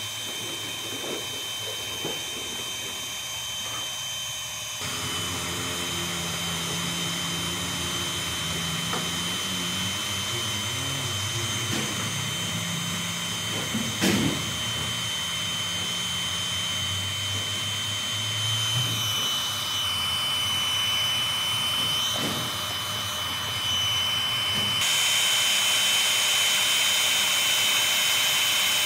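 Hand-held hot-air plastic welding gun running, its blower giving a steady whirring hiss with a thin high whine as hot air melts plastic filler rod into the bumper crack. The sound shifts abruptly about five seconds in and gets louder near the end, with a single short knock midway.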